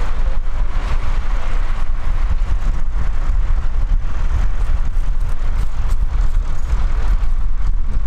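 Tractor diesel engine running steadily under load while pulling a mounted plough through the soil, a continuous low rumble.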